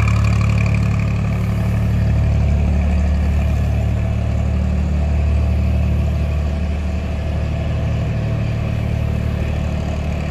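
Cargo boat's engine running steadily, a low, even drone.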